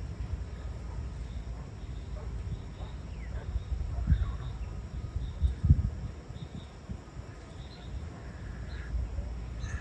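Wind buffeting the microphone in uneven gusts, strongest about four and about six seconds in, with faint repeated high chirps of insects in the background.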